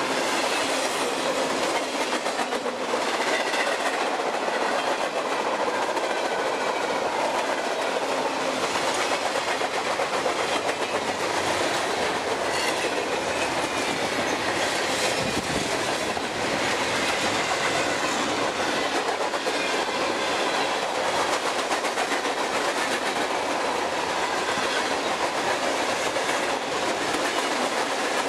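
A freight train's cars rolling past close by at steady speed: continuous wheel-on-rail noise with clickety-clack over the rail joints.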